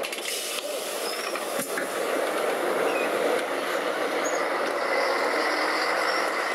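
Steady running noise of a tram and street traffic, heard from inside the tram car.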